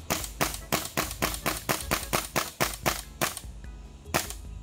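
M4-style airsoft rifle firing a quick string of sharp shots, about four or five a second. The string stops a little past three seconds in, followed by one last single shot.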